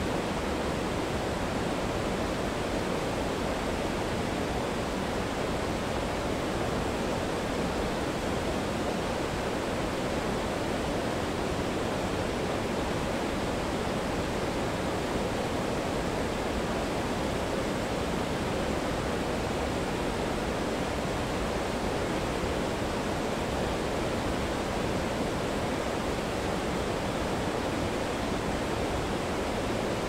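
A fast river running white over rapids: a steady, even rush of water with no breaks.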